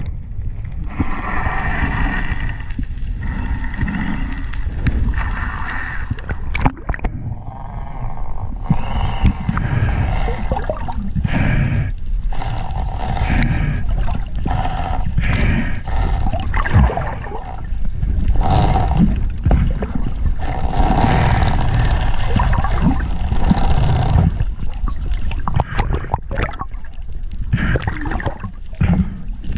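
Water rushing and gurgling over an underwater action camera's housing as the diver swims, with a strong low rumble and scattered clicks.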